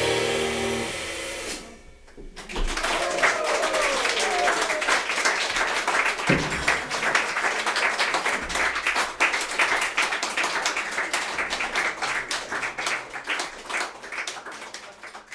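A piano trio's final chord (grand piano, double bass and cymbal) rings out and dies away. After a short pause a small audience applauds, with a brief vocal call early in the applause, and the clapping thins out and fades near the end.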